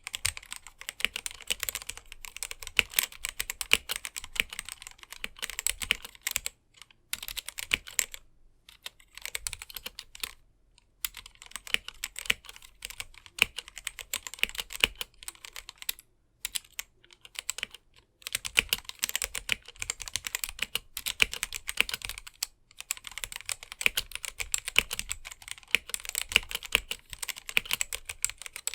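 Typing on a GamaKay/Womier K87 mechanical keyboard with stock, unlubricated Gateron Black linear switches: a fast stream of key clacks, broken by a few brief pauses.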